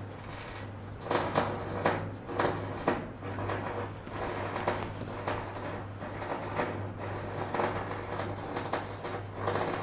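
Denim jeans being handled, shaken out and folded by hand: a run of quick cloth rustles and flaps, thickest about a second in, over a steady low hum.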